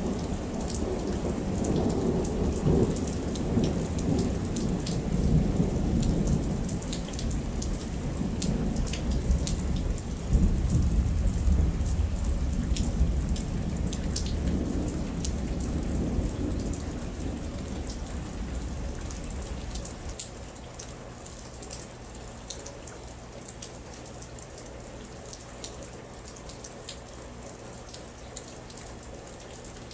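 Thunderstorm: steady rain with sharp drips, under a long rolling rumble of thunder that peaks about ten seconds in and fades away by about eighteen seconds, leaving the rain and dripping alone.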